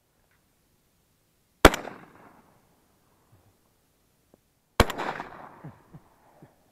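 Two shots from a Browning Maxus semi-automatic 12-gauge shotgun, about three seconds apart, each sharp crack followed by an echo that rolls off over about a second.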